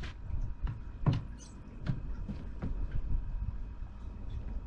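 Several light, irregular knocks and clicks, the loudest about a second in, over a steady low rumble.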